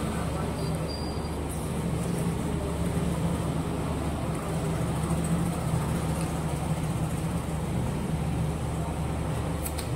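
A steady low hum with a constant background rumble, unchanging in level, with a couple of faint clicks near the end.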